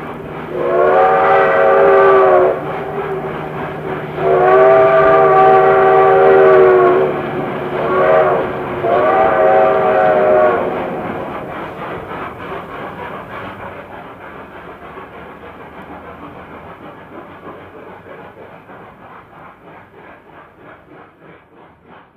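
Train horn sounding two long blasts, a short one and a long one, the standard warning signal for a grade crossing, followed by the rhythmic clickety-clack of wheels over rail joints fading away as the train passes.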